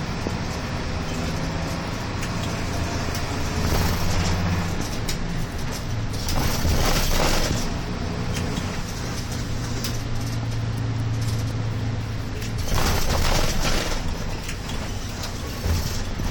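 Route bus's diesel engine running with road noise, heard from inside the moving bus, the engine note shifting up and down. Two loud bursts of hiss, each about a second and a half long, come about six and thirteen seconds in.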